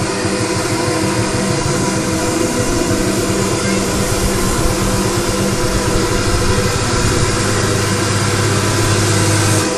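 Dom Dancer fairground ride running at speed: a loud, steady mechanical drone with a held low hum that deepens about seven seconds in.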